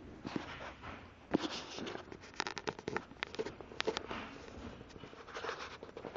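Soft rustling with many irregular small clicks and crackles, densest between about one and four seconds in.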